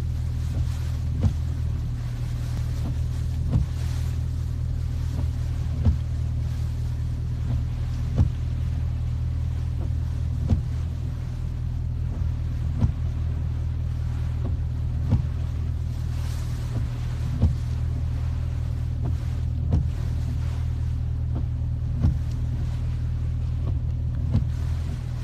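Car engine idling, a steady low hum heard inside the cabin, with a short sharp click repeating evenly about every two seconds.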